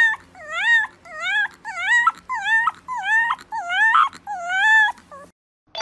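A fluffy white puppy howling in a string of short calls, about two a second, each dipping and then rising in pitch. The calls stop shortly before the end.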